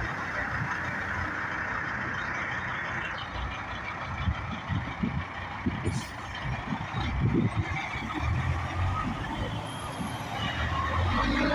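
Road traffic dominated by a semi truck's diesel engine running low and steady, with a pickup truck driving past in front of it; uneven low rumbles swell through the middle.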